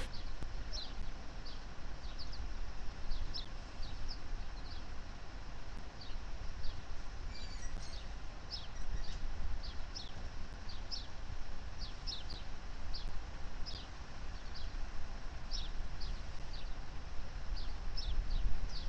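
Small songbirds chirping: short, high, downward-sweeping chirps, about two a second, over a steady low background rumble.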